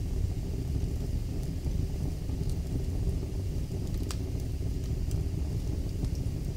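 Wood fire burning in a fireplace: a steady low rumble with a few scattered crackles, one sharper pop about four seconds in.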